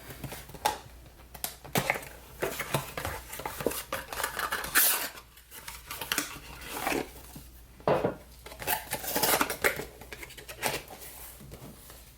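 Glass candle jars and their lids clinking and clattering at irregular intervals as they are handled and set down.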